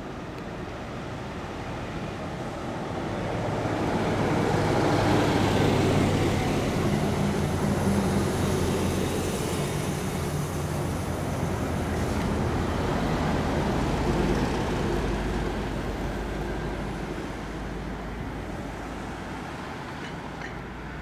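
Diesel engine of a large tour bus, with passing car traffic, driving by on the road: the sound swells to its loudest about five to eight seconds in and then fades, with a second vehicle passing a few seconds later and a low rumble near the end.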